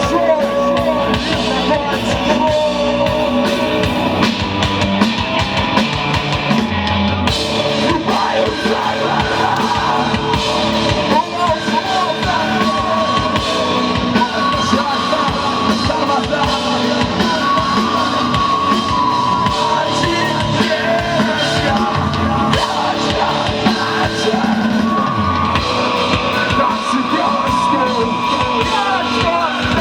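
Live rock band playing: drum kit and guitars, with a singing and yelling voice.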